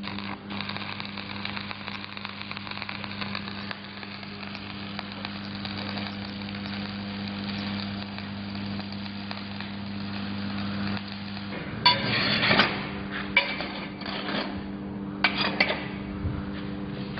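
Shielded metal arc (stick) welding of a flat-position bead: the arc crackles and sizzles steadily over the welding machine's hum, then stops about twelve seconds in. A few sharp knocks follow.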